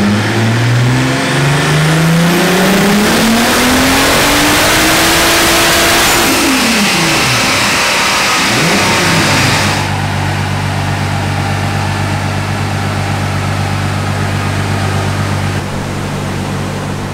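Turbocharged 3.2 VR6 engine on a dyno, pulled through the gears at full throttle: its note climbs steadily for about six seconds, drops sharply as the throttle closes, then settles into a steady lower note that fades near the end. This is a full-power dyno pull where the driven wheels still spin on the rollers, so the dyno reads about 1000 rpm short of the engine.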